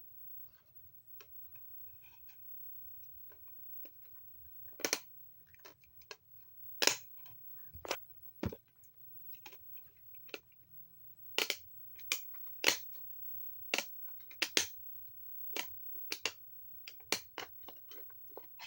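Irregular sharp clicks and taps, about twenty of them at uneven intervals, several much louder than the rest, over a faint low hum.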